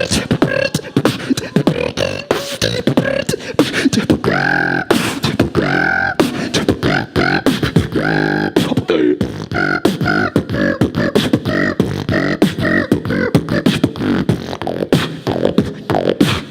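Human beatboxing: a fast run of mouth-made percussive kicks, snares and clicks, with pitched voiced sounds bending up and down over the beat about a third of the way in.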